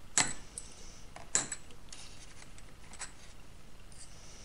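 Long steel nails clinking against one another as they are taken from a cardboard box and handled. Two sharp metallic clinks about a second apart, then a few faint ticks.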